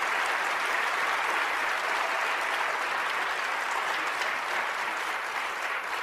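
Audience applauding, a dense, steady clapping that begins to taper off near the end.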